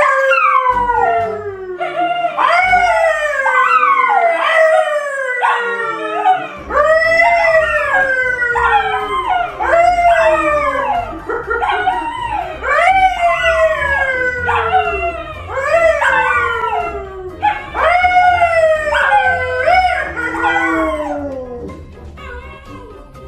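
A dog howling in a long run of loud calls, each sliding up and then falling in pitch, about one a second, stopping near the end.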